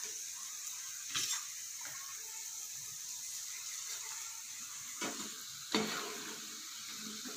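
Hot oil sizzling steadily as batter-coated okra strips deep-fry, with three brief clatters, the loudest near the end, as a metal slotted skimmer lifts the okra out and tips it onto a steel plate.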